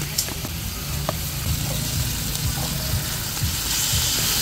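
Raw pork pieces sizzling as they drop into hot oil in an aluminium wok with sautéed ginger, garlic and onion, the hiss growing a little toward the end. A steady low rumble runs underneath.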